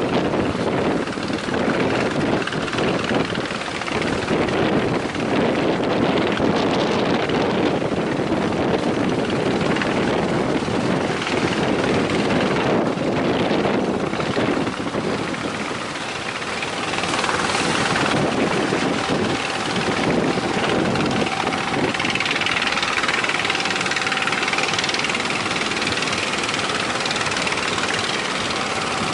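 Boat engine running steadily under heavy wind on the microphone and the sound of the sea; a steady engine tone comes in about halfway through.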